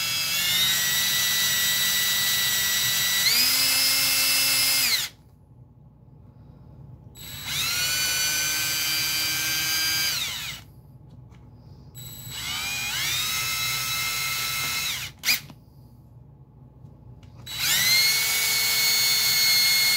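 Power drill with a quarter-inch twist bit boring pilot holes into particle board, run in four spells of a few seconds each with short pauses between. The motor's whine steps up in pitch as the trigger is squeezed harder.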